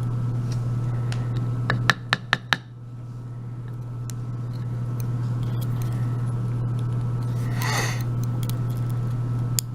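Small metal clicks and taps as pins and springs are worked out of a euro cylinder lock housing during gutting, with a quick run of four sharp clicks about two seconds in. A steady low hum runs underneath, and a short rushing noise comes near the end.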